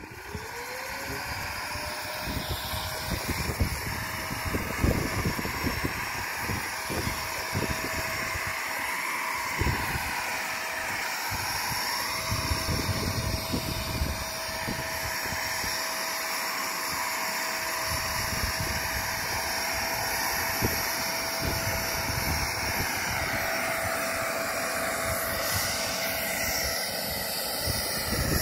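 Wet pond vacuum's motor spinning up at the start and then running with a steady whine, while its nozzle on the pond bottom sucks up water and sludge with irregular low gurgles and thumps through the hose.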